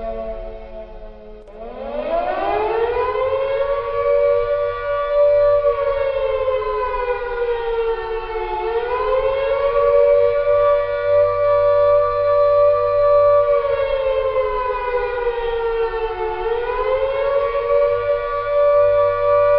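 Air-raid siren wailing in two close notes at once. It sinks low, winds back up about a second and a half in to a steady high pitch, then twice dips and climbs back again.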